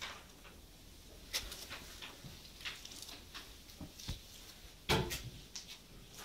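A few scattered light clicks and knocks in a quiet room, the loudest a single knock about five seconds in.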